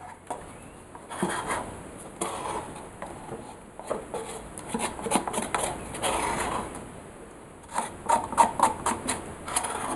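Handling noise of a paper cup worked by gloved hands on a canvas: irregular rustling, scraping and soft knocks, with a quick run of sharp taps about eight seconds in.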